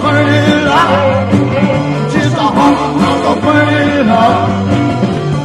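A live rock and roll band playing, with a singer's voice over electric guitar and bass.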